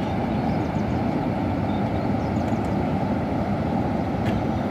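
Floodwater rushing down the spillway chutes of Bhakra Dam from its open flood gates: a steady, deep, even rush of falling water.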